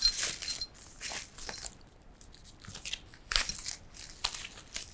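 Plastic packaging crinkling and rustling in irregular crackles as it is pulled off a monitor's metal base, loudest a little after three seconds in.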